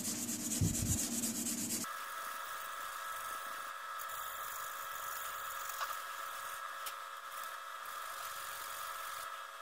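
A cloth rubbing on a dark-stained wooden gunstock as it is polished, for about the first two seconds. The rubbing then stops abruptly, leaving a steady hum of several held tones, with one light tick near the middle.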